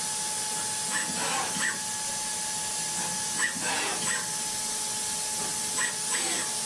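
CNC milling machine cutting: a steady machine whine over a hissing noise, with a pitch that sweeps downward about once a second.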